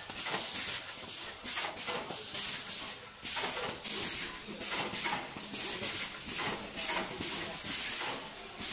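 Automatic kraft paper food tray forming machine running, with compressed air hissing out of its pneumatic cylinders in repeated bursts about once a second, one for each forming stroke.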